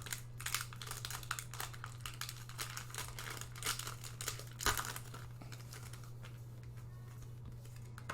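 Foil wrapper of a Pokémon card booster pack crinkling as it is handled and torn open, with a sharper rip about four and a half seconds in, then quieter handling. A steady low hum sits beneath.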